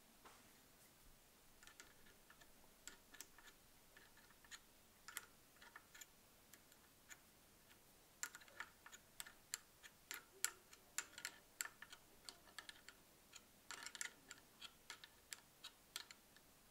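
Small metal spanner and fingers working the nuts and bolts of a handlebar phone-mount clamp as it is tightened: faint, irregular metallic clicks, sparse at first and coming thick and fast from about halfway.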